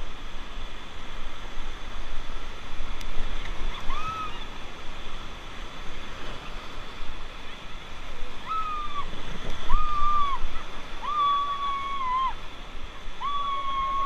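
River rapids rushing and splashing around an inflatable raft as it runs through white water. From about four seconds in, several high, held calls sound over the water, each rising into a held note and dropping off at the end, the last two the longest.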